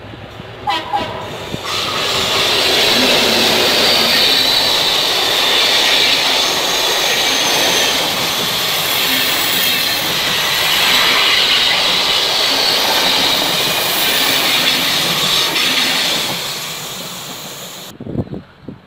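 A train passes close by: a short horn blast right at the start, then the loud, steady noise of the wheels and cars going past for about fourteen seconds, fading near the end before it cuts off.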